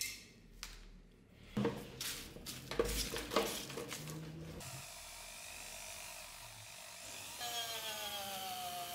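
A few rustles and knocks as used sandpaper scraps are handled on a steel workbench, then a small handheld rotary tool running with a green rubber abrasive bit against a steel dagger scabbard: first a steady hiss, then a steady high motor whine near the end.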